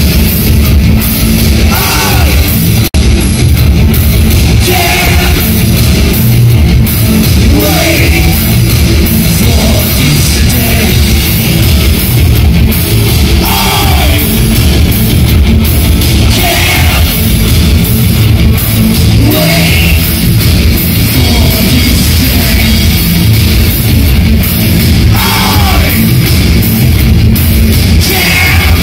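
Loud rock band playing: electric guitar, bass and drums, with a singer's voice over them. There is a brief break in the sound about three seconds in.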